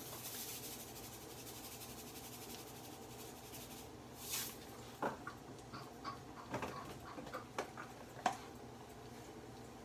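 Seasoning shakers being shaken and handled: a soft rattling hiss at the start and a short shake about four seconds in, followed by a scattered run of light clicks and taps, the sharpest near the end.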